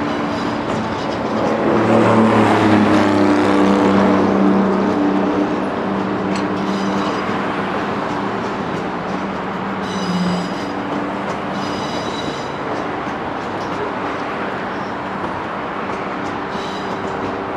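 A long rake of loaded aggregate hopper wagons rolling past behind a Class 60 diesel locomotive, a steady low engine drone under the rumble of the wheels that swells from about two to five seconds in. Short high-pitched squeals from the wagon wheels come around ten and twelve seconds in and again near the end.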